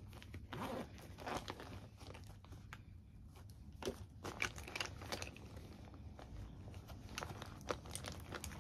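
Faint crinkling and rustling with scattered light clicks as small objects are handled close to the microphone.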